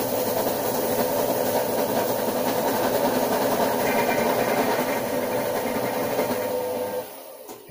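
Countertop food processor's motor running at low speed, its blades grinding chopped chillies, garlic, salt and sugar into a paste. A steady hum that stops about seven seconds in.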